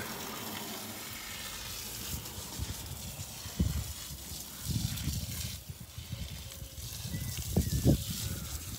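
Water running steadily from a tap through a hose, a continuous hiss. From about three and a half seconds in, irregular low rumbling bumps on the microphone join it.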